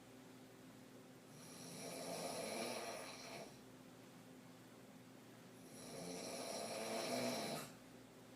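A woman snoring in deep sleep on her back, deep throat snores with her mouth open: two long snores about four seconds apart, each swelling and fading over about two seconds.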